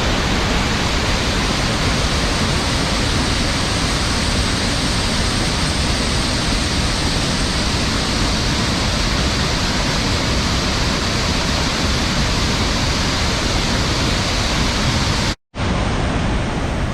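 Steady, loud rushing of the Thirparappu waterfall on the Kodayar River. It cuts out completely for a moment near the end and then resumes.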